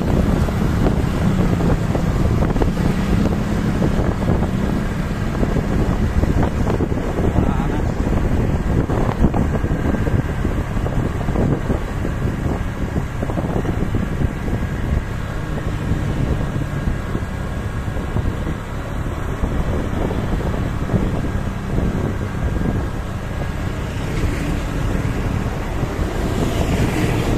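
Wind buffeting the microphone over the steady low rumble of a running vehicle engine.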